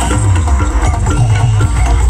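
Loud music with a heavy bass and a melody line, blaring from the large stacked loudspeaker sound systems on the boats.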